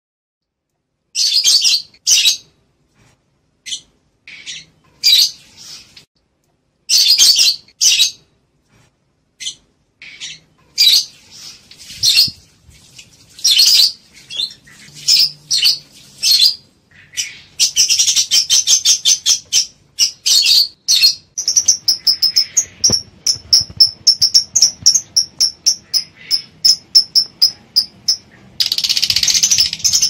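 Lovebirds calling in high-pitched chirps, at first in separate short bursts with pauses between them. About two-thirds of the way in the calls become a fast, even run of short chirps, about four a second, and end in a dense burst of chattering. These are presented as the calls of lovebirds in breeding condition, played to stir a pair to mate.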